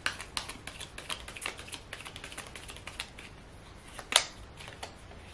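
A tarot deck being shuffled by hand: a fast, irregular patter of light card clicks and flicks, with one sharper card snap about four seconds in as a card is pulled from the deck.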